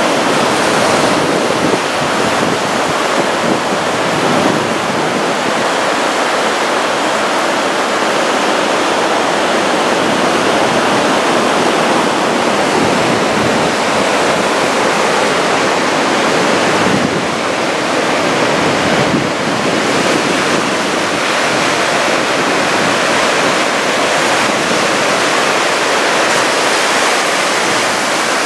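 Heavy surf from big typhoon swell breaking on the shore, a loud, steady rush of water.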